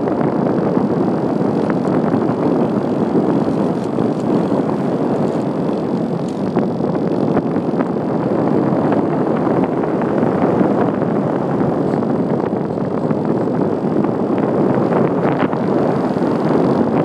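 Steady rush of air over the microphone of an iPhone carried aboard an RC glider in flight.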